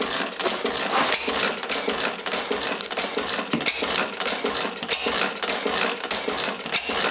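Schleicher Schumm inverted Otto single-cylinder stationary gas engine running steadily with a rapid, even mechanical clatter. The engine is running well after adjustments.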